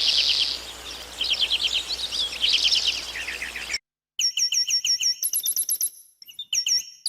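Songbirds singing, two different birds one after the other. First comes a song of rapid high trilled notes in short bursts. After a brief cut comes a fast series of clear, repeated swooping whistled notes.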